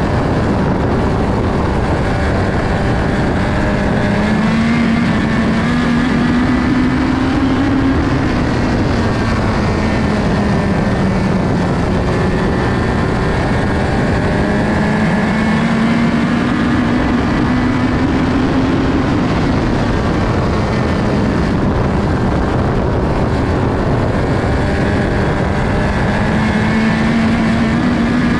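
USAC midget race car's engine at racing speed, heard onboard, its pitch climbing for a few seconds and then dropping back, about every ten seconds, as it accelerates down the straights and lifts for the turns.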